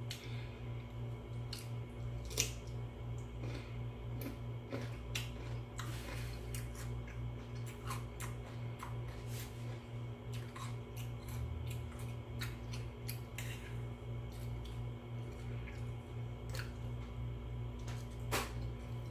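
Eating sounds: scattered sharp clicks of utensils and chewing, one louder click about two and a half seconds in and another near the end, over a steady low hum.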